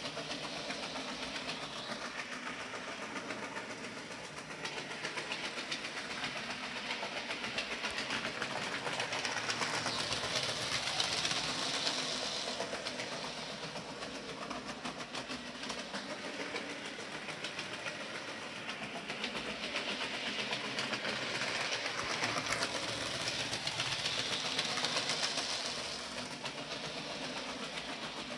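00 gauge model locomotive (Percy the Small Engine) running along the layout's track with its two coaches: a steady running noise of the small motor and wheels on the rails, swelling louder about ten seconds in and again near the end.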